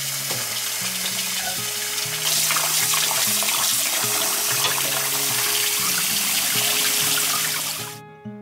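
Kitchen tap water pouring onto rice in a stainless-steel mesh colander while a hand swishes the grains to wash them. The water grows louder about two seconds in and stops near the end. Soft background music runs underneath.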